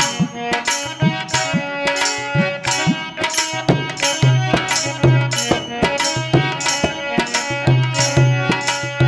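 Instrumental break in a Rajasthani Holi folk song: hand-drum strokes keep a steady beat of about two to three a second under long held melody notes, with no singing.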